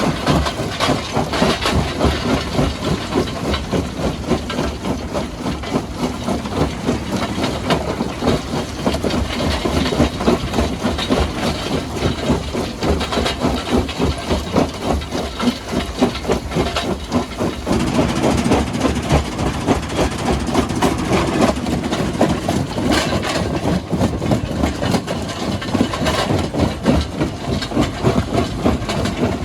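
Heavy stone-crushing machinery running steadily, with a dense, continuous clatter throughout.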